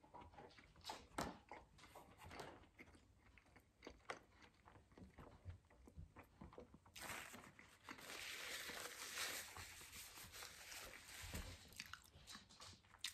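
A man chewing a mouthful of burger with onion rings, quiet and close: soft irregular crunches and wet clicks. About seven seconds in, a steady hiss takes over for several seconds before the chewing clicks return near the end.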